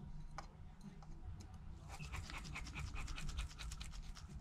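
Precision screwdriver turning a tiny pentalobe screw into the bottom edge of an iPhone XR: rapid, faint, scratchy ticks of the bit in the screw head, sparse at first and much denser from about a second and a half in, over a low steady hum.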